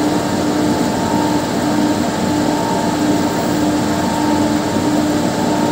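Carpet spin-dryer (centrifuge drum) running steadily as it spins a washed carpet to wring the water out, a steady hum over the whirring. The water is almost all spun out.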